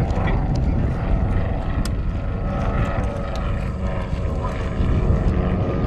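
Light propeller aircraft flying overhead: a steady engine drone with a low rumble.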